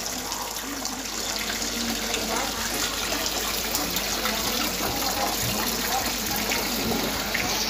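Water running and splashing steadily in live-seafood display tanks, with faint voices behind it.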